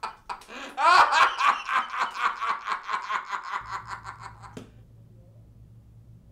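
One person laughing: a quick run of rhythmic ha-ha pulses, loudest about a second in and fading away over about three seconds. It ends with a click, and a low steady hum is left.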